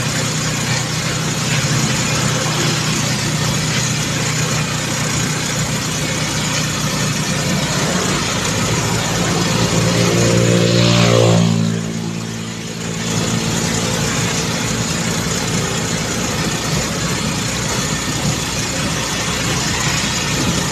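A vehicle's engine running steadily at road speed under tyre and wind noise. About eleven seconds in, the engine note rises, then falls away, and the noise eases briefly before the steady running resumes.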